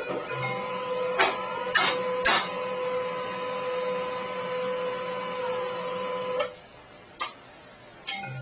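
A small motorised machine running with a steady whirring hum, broken by several sharp clicks, then stopping about six and a half seconds in.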